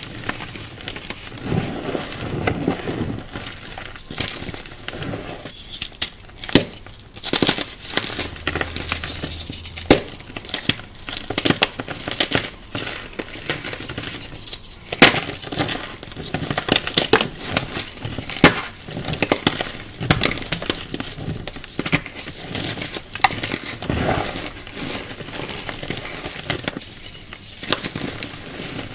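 Hands crushing and crumbling dry, powdery lumps: gritty crunching and sizzling, dense with sharp crackles and small clicks as pieces break and fall back into the dusty pile.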